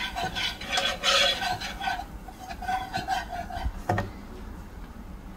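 Metal balloon whisk stirring and scraping flour into melted butter in a nonstick frying pan as a roux is started: rhythmic scraping strokes, weaker after about two seconds, and one sharp tap of the whisk near the end.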